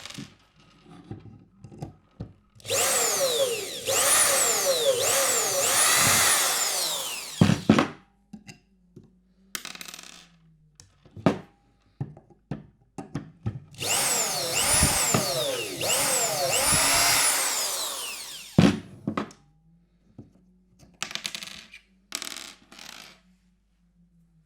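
Cheap electric screwdriver driving screws into plywood: two long runs of about five seconds each, the motor pitch repeatedly swooping up and down, each ending with a sharp knock, with a few short spurts and clicks in between.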